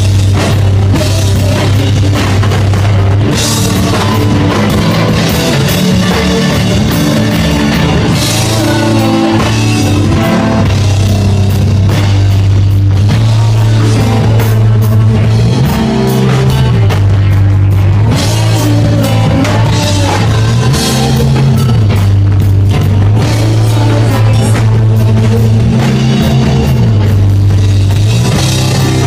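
Live rock band playing loudly: electric guitars over a pulsing bass line and a drum kit with crashing cymbals, with no singing.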